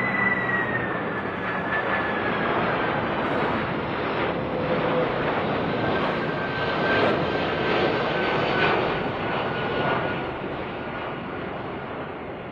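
Boeing 747 Global SuperTanker's jet engines running: a steady rush of jet noise with a high whine that slides slowly down in pitch. It fades near the end.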